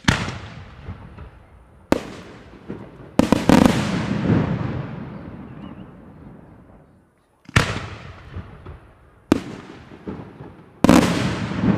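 Aerial firework shells bursting in a display, about six loud bangs a second or more apart, each followed by a long rolling echo that fades away.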